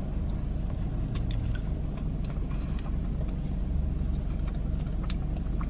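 Chewing a sandwich with faint, scattered mouth clicks over the steady low hum of a car idling, heard inside the car's cabin.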